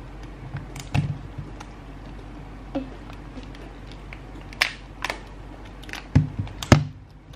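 Scattered small clicks and crackles, a few of them sharp, as the sticker wrapping on a plastic L.O.L. Surprise ball is picked at and peeled.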